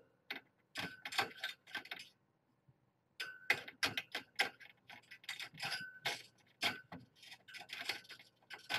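Irregular light clicks and small rattles, several a second, pausing for about a second near the middle of the stretch.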